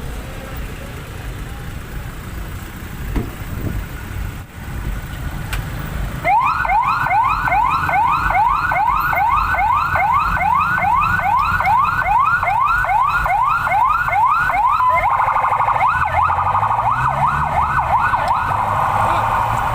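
Ambulance siren starting about a third of the way in with a loud yelp of repeated rising sweeps, about two a second. About three-quarters through it switches briefly to a faster warble before the sweeps return. Street traffic noise runs underneath.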